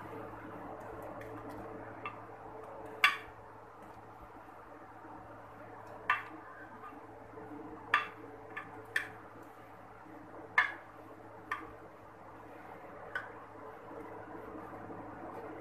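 A steel ladle clinking against a glass baking dish and a pan while custard is ladled and spread, about nine sharp clicks at uneven spacing, the loudest about three seconds in. A steady low hum runs underneath.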